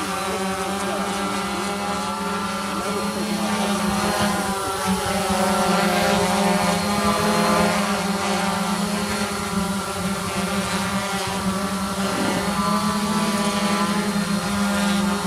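Quadcopter drone's motors and propellers buzzing steadily, with several rotor tones drifting up and down in pitch as the throttle changes.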